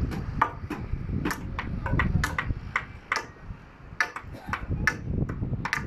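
Hammers striking nails into timber formwork: irregular, sharp knocks, some with a short metallic ping, coming faster and overlapping at times, over a low background rumble.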